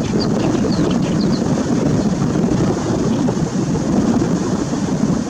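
Strong wind buffeting the microphone. A few short, faint notes of a great reed warbler's song come through in the first second and a half.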